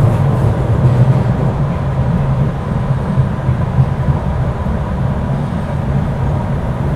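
MBTA subway train running through a tunnel, heard from inside the car: a steady low rumble of wheels on rail with a faint, steady high tone above it.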